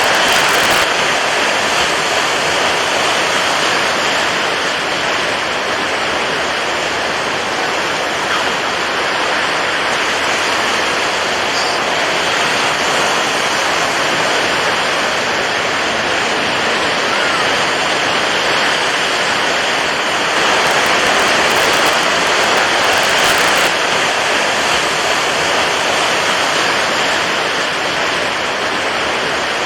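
Steady rushing water, an even wash of noise at a nearly constant level, with no separate swells or breaking waves standing out.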